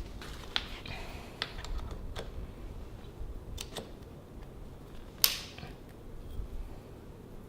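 Scattered small clicks and taps of small bike parts being handled, with one sharper, louder click about five seconds in.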